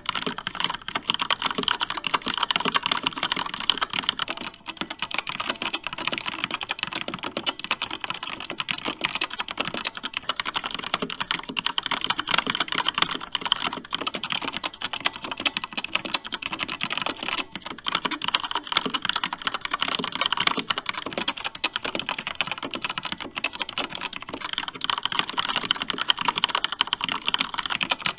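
Continuous fast typing on a mechanical keyboard with red linear switches, many keystrokes clacking in quick succession without a break.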